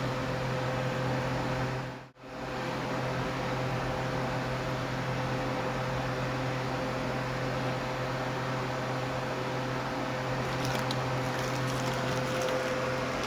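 A steady mechanical hum under even hiss, cutting out briefly about two seconds in, with a few faint ticks near the end.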